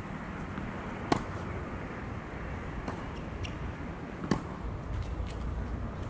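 Tennis rally: sharp pocks of rackets striking the ball, the two loudest about a second in and about four seconds in, with fainter pocks of the far player's shots and ball bounces on the hard court between them. A steady hum of distant traffic lies underneath.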